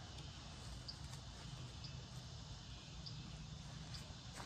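Faint outdoor ambience: short, high chirps from a small animal about once a second over a low steady rumble, with a single click near the end.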